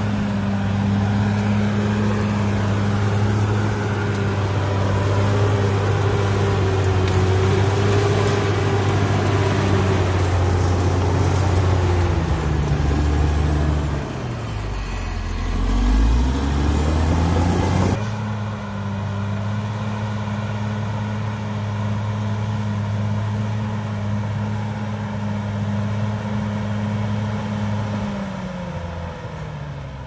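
CAT D6R XL bulldozer's diesel engine running steadily while the dozer pushes earth. Around the middle the engine note dips and then climbs again, and near the end it falls away.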